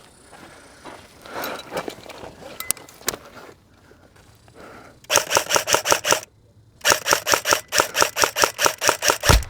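Airsoft electric rifle firing on full auto, a rapid clatter of about ten shots a second: a burst of about a second starting about five seconds in, a short pause, then a longer burst of about three seconds. Before it, quieter rustling and clicks of movement.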